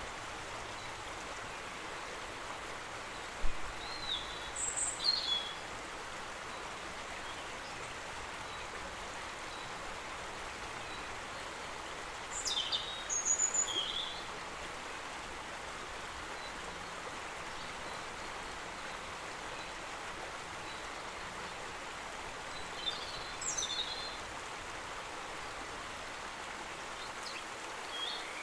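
Outdoor nature ambience: a steady, even rush of background noise with three brief clusters of high bird chirps spread through it.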